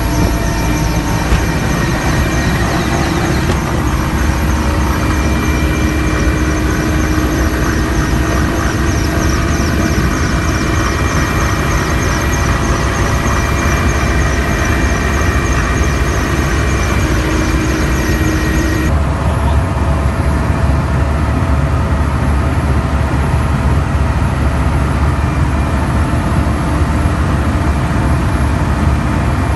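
Russian-built helicopter heard from inside the cockpit: a steady, heavy rotor and engine rumble with a high turbine whine over it. The high whine drops away suddenly about two-thirds of the way through.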